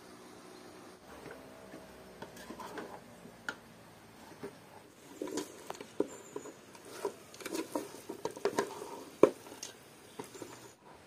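Wooden spatula stirring pieces of lamb in an aluminium cooking pot: irregular knocks and wet squelches, sparse at first and coming thick from about halfway, with one sharp knock of the spatula near the end.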